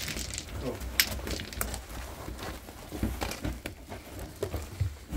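Rustling and scraping of a woven cloth saddle sack being handled on a donkey's back, with irregular clicks and knocks throughout.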